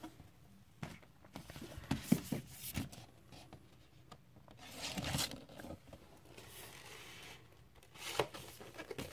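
Handling a vinyl LP and its cardboard gatefold jacket: sliding and rustling of paper and card, with a few light knocks and clicks.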